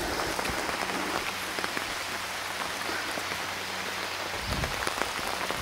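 Steady rain falling in tropical forest, with scattered individual drops, and a few low thuds about four and a half seconds in.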